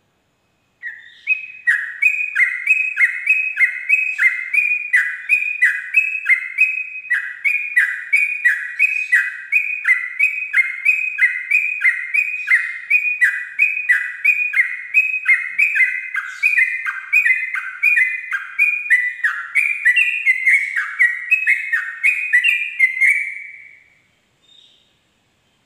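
Yellow-vented bulbul (trucuk) singing a long unbroken 'ropel' run of quick repeated notes, each sliding downward, about two or three a second. The notes turn higher and more varied near the end, and the song stops about a second and a half before the end.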